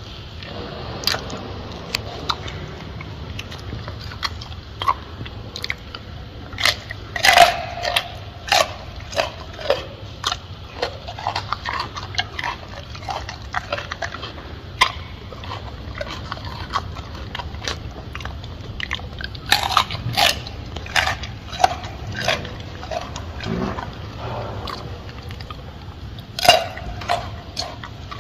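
A gorilla chewing and biting into a banana: irregular sharp smacks and crunches, coming thickest in clusters around a quarter of the way in, about two-thirds through and near the end, over a steady low hum.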